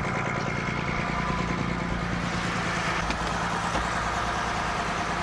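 Fishing boat's engine running steadily at an even pitch.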